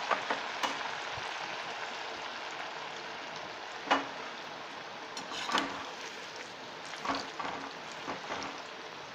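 Corn-flour-coated macaroni deep-frying in hot oil, a steady sizzle. A few sharp clinks of a steel slotted spoon stirring in the wok come through, the loudest about four seconds in and several more in the second half.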